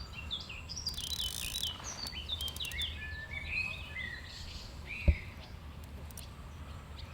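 Birds chirping and singing in quick short notes, over a steady low outdoor rumble, with one sharp thump about five seconds in.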